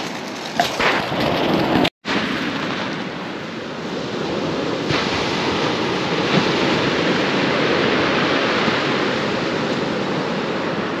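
Surf breaking and washing up a shingle beach: a steady rushing hiss that cuts out for an instant about two seconds in.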